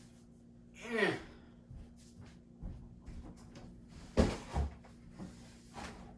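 A trash can being fetched and handled: bumps and knocks, the loudest a pair of sharp knocks about four seconds in. They follow a short falling pitched sound about a second in.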